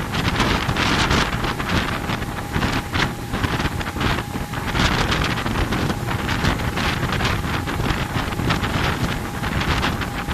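Wind buffeting the microphone over a motorboat's outboard motor running steadily at speed and the rush of its churning wake. A faint steady whine sits under the gusting noise.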